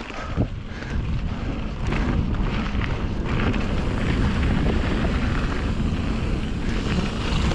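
Wind buffeting the microphone on a fast mountain-bike descent, over the rumble of tyres on the dirt trail; it jumps up in loudness about a second in as speed builds and then holds steady.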